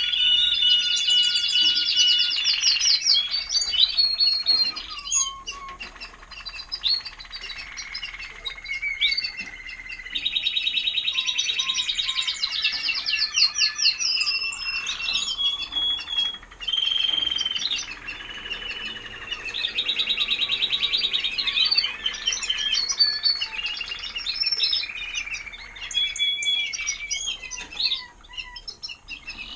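Timbrado español canaries singing: long song phrases of rapid, quickly repeated trills mixed with long held notes, swelling and fading in turns.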